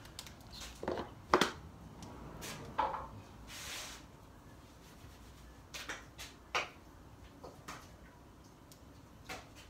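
Metal spoon clinking and scraping against a stainless steel mixing bowl as a salad is tossed: scattered light knocks with a brief rustle near the middle.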